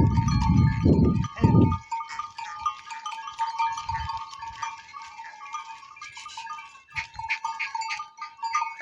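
A flock of goats and sheep bleating, many overlapping calls. A loud low rumble covers the first two seconds.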